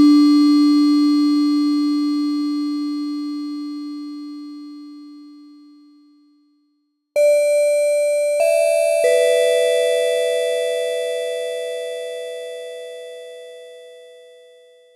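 A low bell-like tone, struck once, rings out and slowly fades away over about six seconds. After a short gap, three higher bell-like tones are struck in quick succession, about a second apart, and ring together as they fade.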